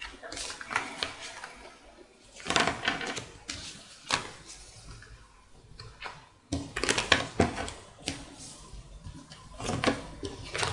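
Tarot cards being gathered up and handled by hand: about five bursts of quick card clicks and slaps, with short pauses between them.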